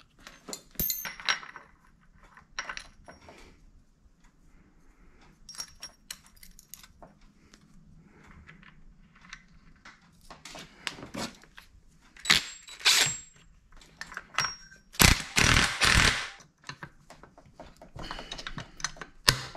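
Metal tools and engine parts clinking and knocking in scattered, irregular clicks, some ringing briefly, with a louder burst of clatter about fifteen seconds in.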